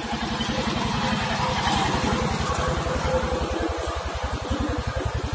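Small engine driving a concrete mixer, running steadily with a fast, even chugging of about a dozen beats a second.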